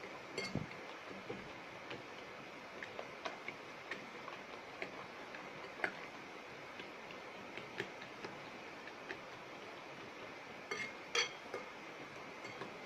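A fork beating eggs in a ceramic plate: faint, irregular clicks of the tines against the plate over a steady hiss, with a quicker cluster of clicks near the end.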